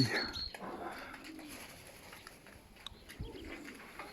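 Pigeons cooing faintly, with a brief high chirp at the very start.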